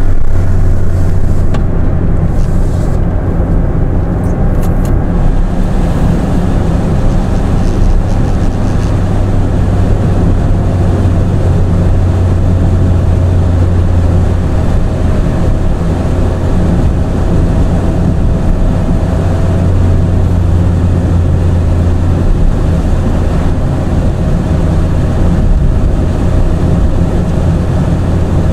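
Car driving along the road: a steady, loud, low noise of engine and tyres that holds an even pace throughout.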